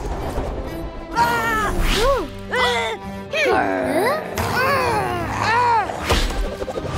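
Cartoon soundtrack: background music under characters' wordless vocal sounds, sliding up and down in pitch in short arcs, with a brief sharp effect near the end.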